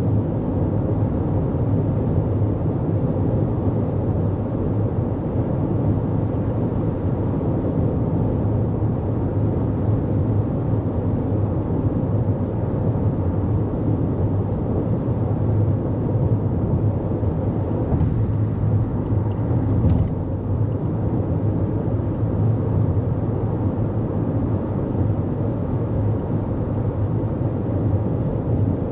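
2024 Toyota Corolla Cross cruising at highway speed: a steady low drone of tyres on the road, engine and wind.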